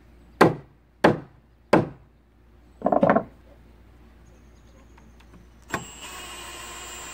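Claw hammer driving a toenailed nail into wood: three sharp blows about two-thirds of a second apart, then a quick cluster of taps about three seconds in. Near the end a cordless drill starts and runs steadily.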